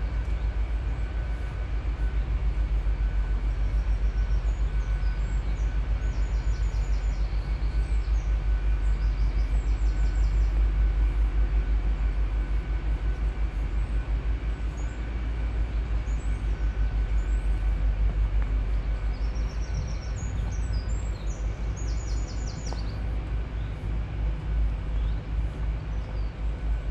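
Low, fluttering rumble of wind buffeting a GoPro Hero 7's microphone. Small birds sing in short chirps and trills in the background, in bursts about five seconds in and again about twenty seconds in.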